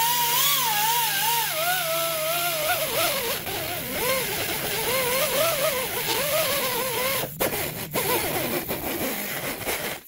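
Air-powered rotary tool scrubbing rust and scale off the steel wheel-bearing bore of a steering knuckle. Its whine wavers up and down in pitch as it is pressed against the metal. It cuts out briefly twice near the end, then stops sharply.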